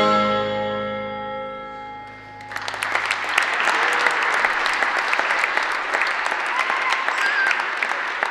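The last chord of a percussion ensemble's mallet instruments rings and fades away over about two seconds. Then audience applause starts and carries on, with a few cheers on top.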